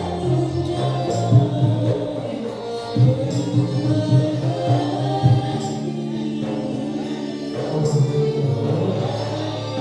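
Live Malay ronggeng music: a woman singing over violin, acoustic guitar and frame drum in a steady dance rhythm.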